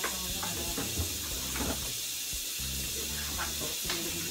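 Groceries being handled in an open refrigerator: a few light knocks and rustles as packages are moved and pulled out, over a steady hiss.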